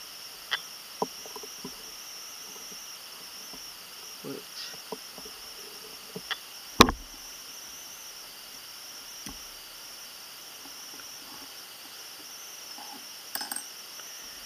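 Small, sharp metallic clicks and taps of watchmaker's screwdriver and tweezers on the parts of an Omega cal. 344 bumper automatic movement while a bridge is worked free. The clicks are few and spread out, the loudest about seven seconds in, with a quick cluster near the end, over a steady high-pitched hiss.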